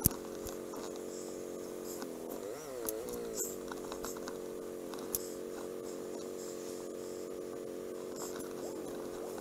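Motorcycle engine running steadily. About two and a half seconds in, its pitch dips and then rises again. A sharp click comes right at the start, and a few faint ticks follow.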